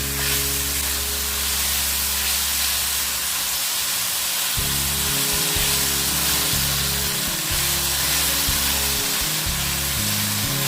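Chicken and sliced mushrooms sizzling as they fry in a pan, with a steady hiss, under background music.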